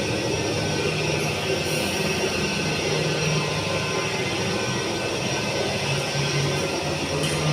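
Gartec Aritco platform lift running as the platform travels between floors: a steady drive-motor hum with an even hiss.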